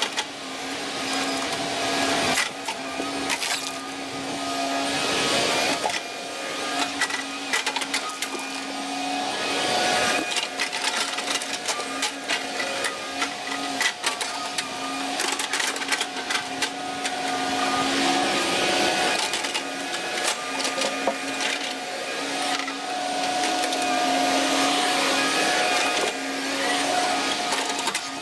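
Volvo ECR145EL excavator working: its engine and hydraulics run under load with a steady whine that shifts in pitch a few times, while wood cracks and snaps repeatedly as trees and brush are worked.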